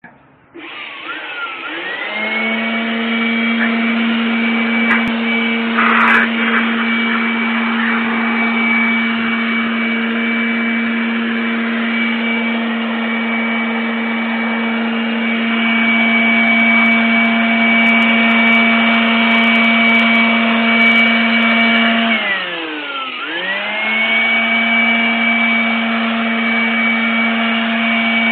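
Electric blower motor spinning up to speed and running with a steady whine. About twenty-two seconds in it winds down, its pitch falling, then spins straight back up and runs on.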